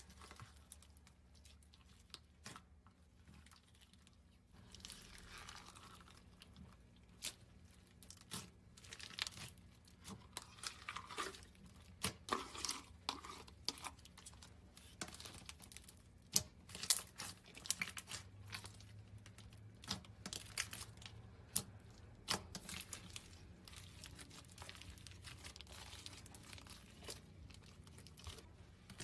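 Slime being squished and stretched, with irregular sticky crackles and pops that grow denser and louder from about a third of the way in.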